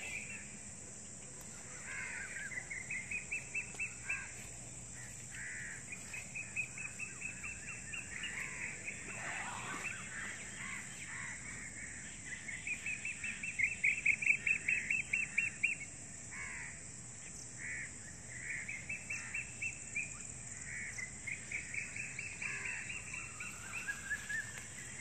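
Birds calling in repeated runs of rapid notes, each run a second or two long, over a steady high-pitched insect hum.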